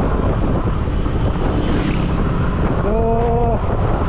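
Wind buffeting the microphone of a scooter riding at road speed, a steady rushing noise that buries the engine. About three seconds in comes a short held tone, under a second long.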